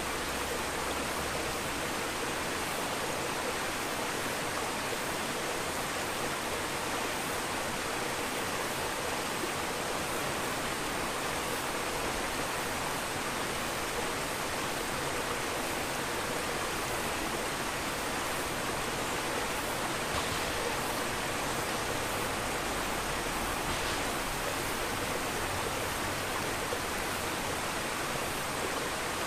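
Steady rush of bubbling and moving water from an aquarium's aeration and filter flow, even throughout.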